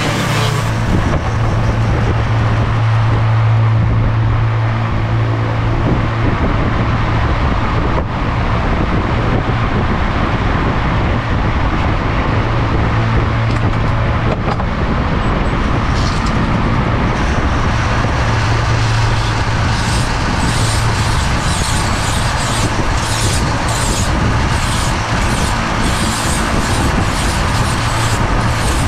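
Flexible-shaft rotary tool running steadily with a low hum while its sanding drum and burr grind into a cork decoy body. From about two-thirds of the way in, the grinding comes in short strokes, about two a second.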